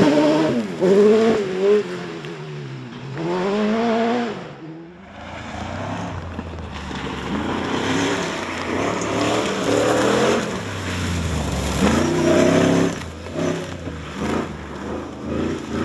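Off-road 4x4 rally car engines revving hard, the pitch climbing and dropping again and again through gear changes. About five seconds in, the sound cuts to another car running over a deep, steady low rumble.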